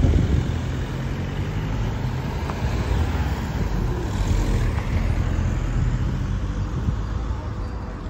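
Ganz CSMG2 articulated tram approaching slowly along the platform, with a steady low rumble from its wheels on the rails and its running gear.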